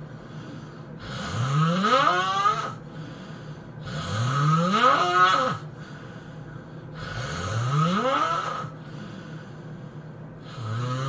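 A person snoring loudly and rhythmically, one long snore about every three seconds, each rising steadily in pitch as it goes.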